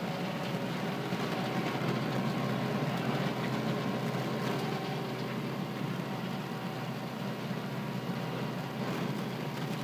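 Kubota M7840 tractor's diesel engine running steadily under load, driving a PTO slasher that is mowing grass as the tractor travels along a row at about 8 km/h.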